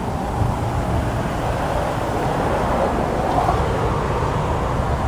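Steady low rumble of vehicle engines and road traffic at a gas station forecourt.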